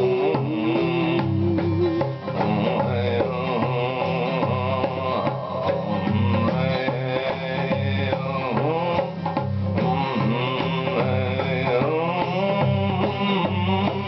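Acoustic guitar strummed in a steady rhythm.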